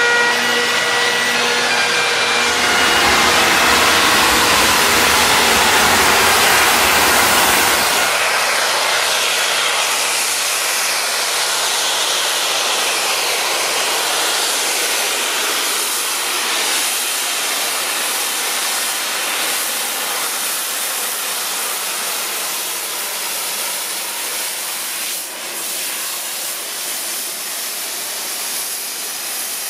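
Flying Scotsman, an LNER A3 steam locomotive, running through a station at speed with a steady loud rushing hiss of steam and train noise. The noise is loudest in the first few seconds, with a low rumble, then settles into a broad hiss as the engine draws past.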